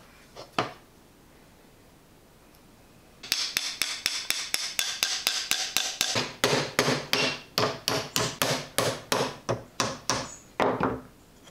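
A small hammer tapping handle pins through the wooden scales of a cleaver: a couple of light knocks, then about seven seconds of quick, even blows, four or five a second.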